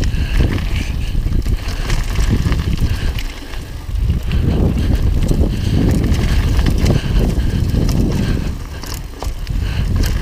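Umf Freddy mountain bike riding fast down a loose gravel trail: heavy wind rumble on a helmet-mounted camera, with tyres crunching over stones and the bike rattling. The noise eases briefly twice.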